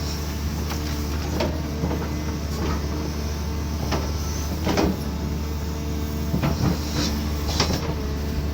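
Cat 320D2 excavator's diesel engine running steadily, with a series of sharp, irregular knocks and clanks over it, about eight in the span.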